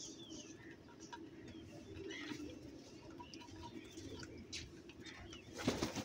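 Faint, low cooing bird calls with a few scattered high chirps. About five and a half seconds in comes a short, loud flurry as house crows take off from the ground.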